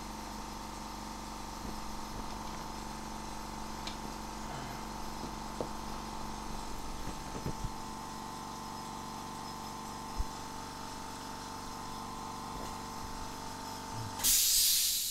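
Steady electrical hum with a couple of fixed tones from running bench equipment, with a few faint clicks. About a second before the end it cuts out into a loud, short hiss.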